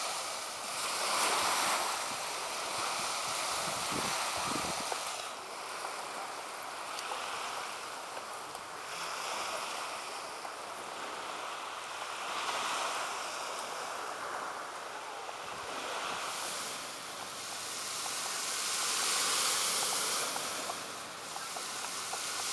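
Small sea waves washing up on a sandy beach: a steady hiss of surf that swells and eases every few seconds.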